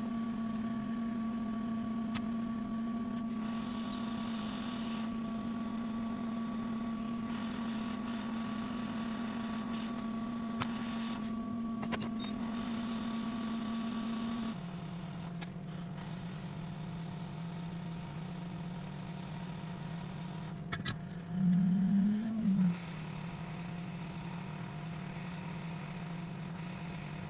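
Hot-air rework station blowing, a steady low hum with an airy hiss that comes and goes, during chip rework on a logic board. The hum drops in pitch about halfway through, and a short louder wavering tone comes about two-thirds of the way in.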